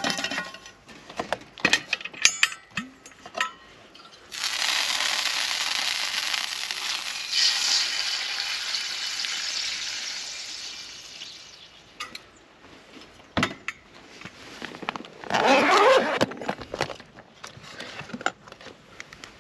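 Food sizzling in a hot pan: the sizzle starts suddenly about four seconds in, as food goes into the pan, and dies away over the next several seconds. Clinks and taps of cooking utensils come before and after, with a brief loud wavering sound near the end.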